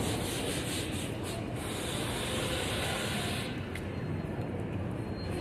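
Steady city street noise: a low rumble with a hissing rush on top that falls away about three and a half seconds in.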